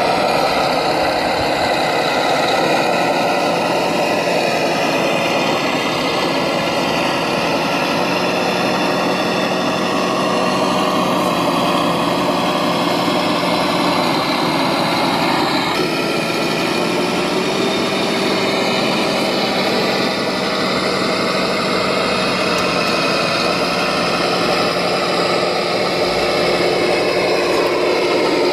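RC model tractor's drive running steadily as it hauls a loaded trailer through soil, a continuous mechanical tone whose pitch drifts slowly up and down with its speed, shifting about halfway through.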